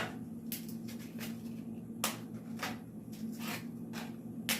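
Crisp leftover taco shells being broken up by hand, a series of sharp cracks spaced irregularly, roughly one every half second to second.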